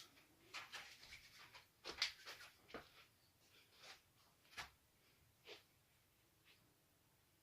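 Faint, intermittent rustling of hands rubbing and working hair wax, about half a dozen short scrapes that thin out toward the end.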